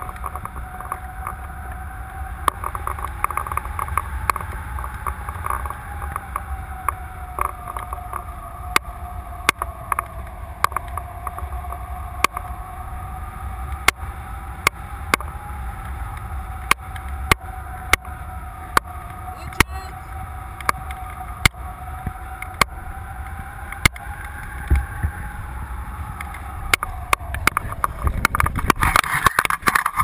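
Wind rushing over the camera of a tandem paraglider in flight, with a low rumble, a single wavering tone and frequent sharp clicks. Near the end it turns louder and rougher as the glider touches down.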